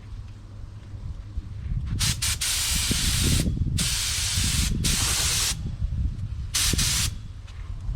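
Clear coat being sprayed onto a repaired car bumper in four separate passes of hiss, the first starting about two seconds in and each lasting roughly half a second to a second and a half.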